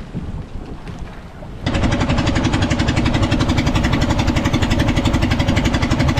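Engine of a small wooden outrigger fishing boat running steadily underway, loud with a fast even pulse; it comes in abruptly about a second and a half in, after fainter wind and a few knocks.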